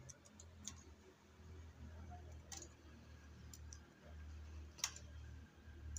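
A few faint, scattered clicks of a metal transfer tool against the latch needles of a chunky knitting machine as stitches are hung onto the needle hooks, the sharpest about five seconds in, over a low steady hum.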